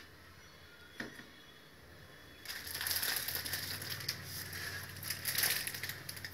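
Plastic packaging being crumpled and handled: dense crinkling and crackling that starts about two and a half seconds in, after a single sharp click about a second in.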